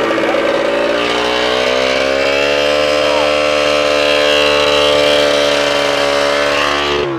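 1987 Johnson 40 hp two-stroke outboard running at a fast, steady speed, having fired up with its kill-switch wiring bypassed: the intermittent key switch had been cutting the spark. At the very end it is shut off and the note falls away as it winds down.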